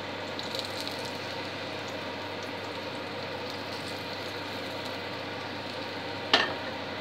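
A pancake frying in a pan over a lit gas burner: a steady hiss, with a few sizzling crackles about half a second in. Near the end comes one sharp clack, which fits the pan being set back down on the hob's grate.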